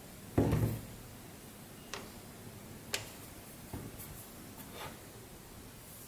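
Hard plastic parts of a joystick remote housing being handled and fitted together: a dull knock about half a second in, then a few light clicks and a brief rub.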